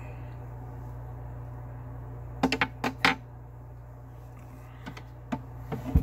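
Sharp clicks and clacks of small hard objects being handled and set down, in a quick cluster about two and a half to three seconds in and again near the end, the last one with a dull thump, over a steady low hum.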